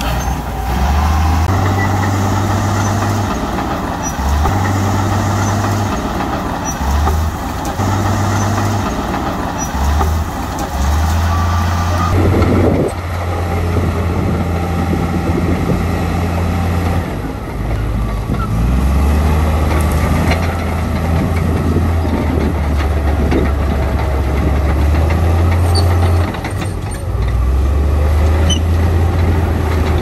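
Heavy diesel construction machinery (bulldozer and dump truck engines) running under load. It is a loud low rumble that steps up and down in pitch and level every second or so, with an abrupt change about twelve seconds in.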